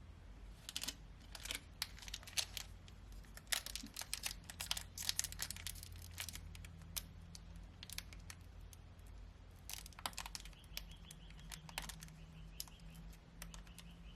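Trading cards and a foil booster-pack wrapper being handled: irregular crinkling, rustling and sharp little clicks of cards.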